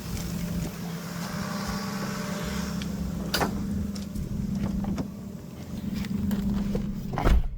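Lexus GS300 inline-six engine idling steadily, with a sharp click about three and a half seconds in and a loud thump near the end.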